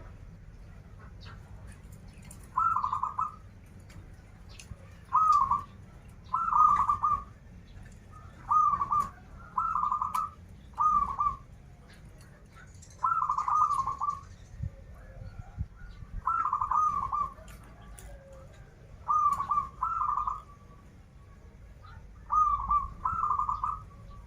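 Zebra dove (perkutut) cooing: short rolling coo phrases, one or two at a time, repeated every couple of seconds over a steady low rumble.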